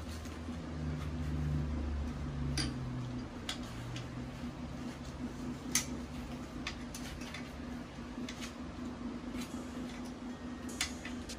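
Scattered light clicks and taps, about one a second and irregular, from gaming-chair hardware and tools being handled during assembly, over a steady low hum that swells for the first few seconds.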